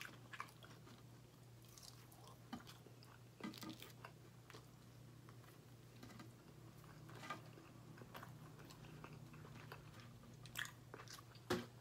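Faint chewing and mouth sounds of a person eating crispy fried chicken tenders and toast, with scattered soft clicks. A faint steady low hum sits underneath.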